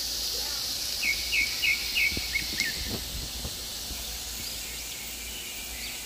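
Tuna sisig sizzling in a frying pan: a steady high hiss that eases off after about three seconds. A quick run of about five short high chirps comes between one and two seconds in.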